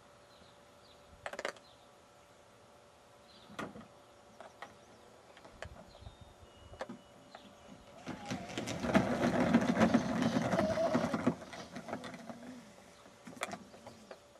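Plastic cart wheels rumbling down a plastic toy roller-coaster track for about three seconds, after a few scattered knocks and clicks as the cart sits at the top.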